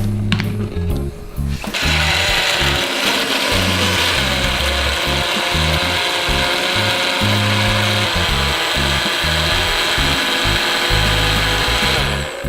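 Electric blender running steadily, grinding fruit into a seasoning paste; it starts about two seconds in and stops near the end. Background music plays underneath.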